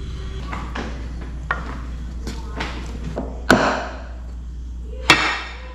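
A series of sharp household knocks and clatters over a steady low hum, with the loudest bang about three and a half seconds in and another near five seconds.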